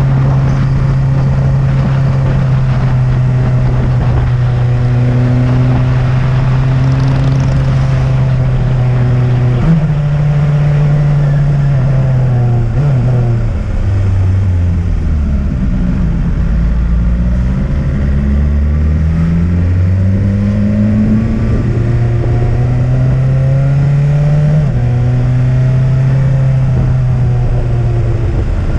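Motorcycle engine pulling up a mountain road, with wind rush. Its pitch steps up about ten seconds in, sinks as it slows through a bend, climbs again as it accelerates out, and drops at a gear change near the end.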